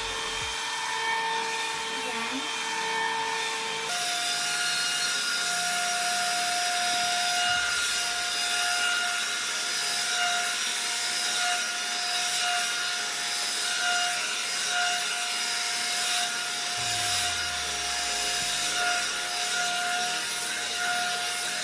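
One-step hot air brush hair dryer running steadily on its high setting, blowing with a motor whine that steps up in pitch about four seconds in.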